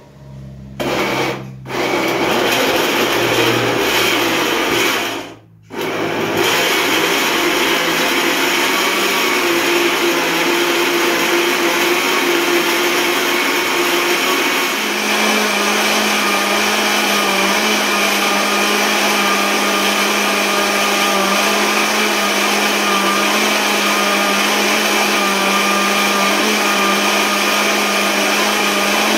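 Countertop electric blender puréeing peeled guava with water. It starts about a second in, stops briefly twice in the first six seconds, then runs steadily; about halfway through its sound changes and a steady low hum comes in.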